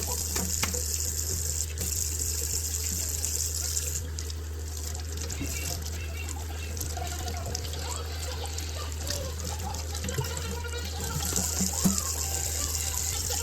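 Kitchen tap running into a sink. It runs for about four seconds, stops, and starts again about eleven seconds in, with small knocks and clinks in between. A steady low hum sits underneath.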